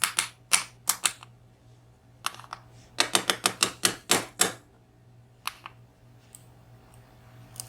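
Sharp metallic clicks and taps from small tools working the disassembled VSR dimple lock to draw out pin springs and drivers. They come in uneven clusters, with a quick run of about five clicks a second in the middle, and a faint steady hum sits underneath.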